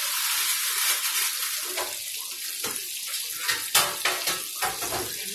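Chicken pieces deep-frying in a skillet of hot oil: a steady sizzling hiss that, about two seconds in, thins into scattered pops and crackles.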